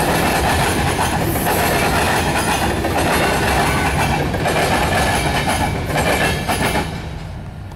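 Freight train of covered hopper cars rolling past, steel wheels clacking on the rails. The sound falls away near the end as the last car goes by.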